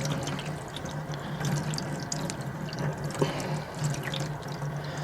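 Water splashing and dripping in a sink as degreased tools are rinsed, with many small irregular splashes over a low steady hum.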